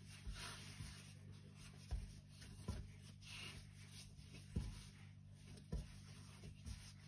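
Hands shaping bread dough into a ball on a floured countertop: faint rubbing with a few soft, irregular thuds as the dough is pressed and turned, over a steady low hum.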